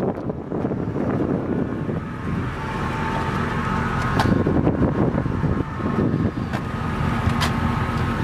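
Ford E350's 5.4-litre V8 idling steadily, a low hum with a faint thin whine over it and a few light clicks.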